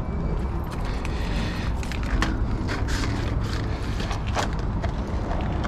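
Clear plastic jar of solder heat-shrink connectors being handled and its screw lid taken off, giving a few sharp plastic clicks and rattles over a steady low rumble.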